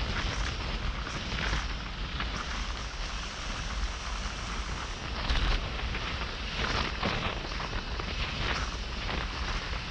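Wind buffeting a helmet-mounted microphone at cycling speed: a steady low rumble with irregular louder gusts.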